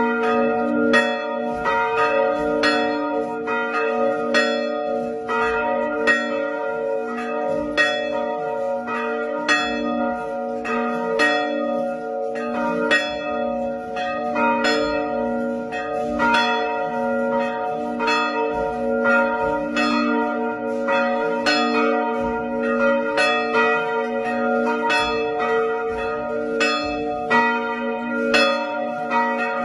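Catholic parish church bells pealing: several bells struck one after another, the strokes coming every half second to a second and overlapping, over a steady ringing hum.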